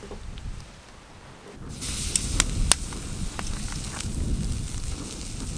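Steak sizzling on a hot grill plate over an open wood fire, a steady hiss with sharp pops and crackles. The sizzle starts abruptly about a second and a half in, after a low wind rumble.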